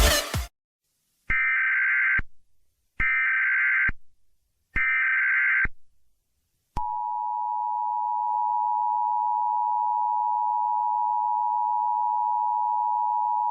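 Emergency Alert System alert opening: three short bursts of SAME header data tones, each about a second long with a second's gap between them. About seven seconds in, the steady two-tone EAS attention signal begins and holds.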